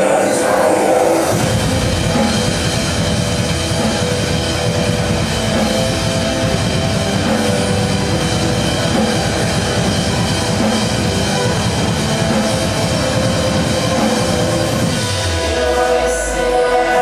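Drum kit played hard along with a loud electronic heavy-metal backing track with steady synth tones. The heavy part comes in about a second in and stops near the end, leaving a deep falling bass tone, then the synths alone.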